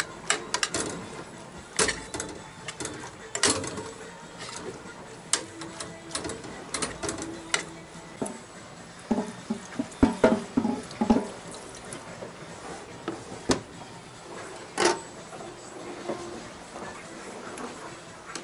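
Irregular clicks, clinks and knocks of pots and utensils being handled in a small boat galley, busiest about halfway through.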